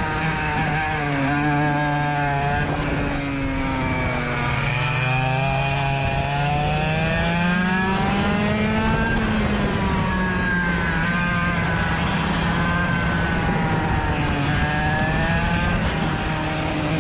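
Rotax DSB two-stroke kart engine at racing speed, its revs dropping and climbing again several times: falling off through the first few seconds, rising to a peak around the middle, then dipping and building again near the end.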